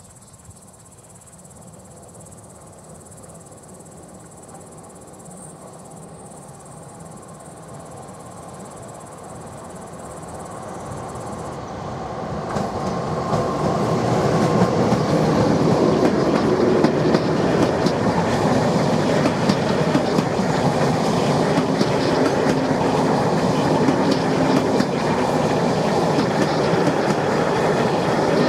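An electric locomotive hauling a passenger train approaches, growing steadily louder over about a dozen seconds. It then runs past close by at speed, the coaches' wheels clattering over the rail joints as they go by.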